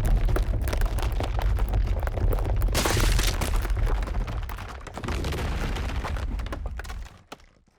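A dense, rapid stream of heavy sound-effect impacts over a deep rumble. It swells about three seconds in and cuts away near the end.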